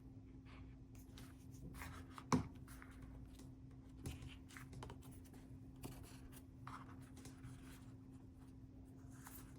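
Faint rustling and light tapping of paper and cardstock pieces being handled, with one sharp tap a couple of seconds in, over a steady low hum.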